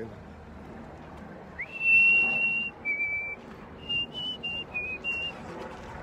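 A person whistling a short tune: a long held note that slides up into place about a second and a half in, a lower note, then a run of short notes.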